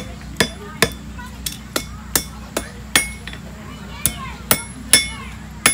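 Blacksmith's hand hammer forging iron held in tongs on an anvil: about a dozen sharp blows in an uneven rhythm, each with a brief metallic ring, with a pause of about a second in the middle.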